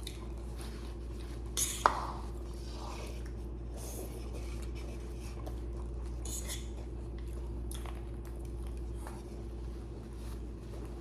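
Cutlery clinking and scraping against a dish during a meal, with one sharp clink about two seconds in, over a steady low room hum.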